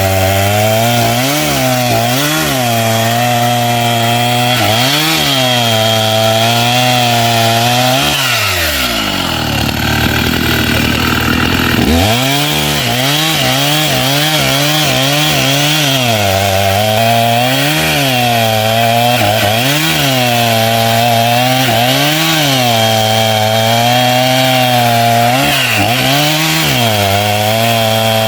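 Two-stroke chainsaw ripping wood into boards, its engine pitch dipping and recovering over and over as the chain bites into the cut. About eight seconds in the engine drops to a low pitch for some four seconds, then revs back up and carries on cutting.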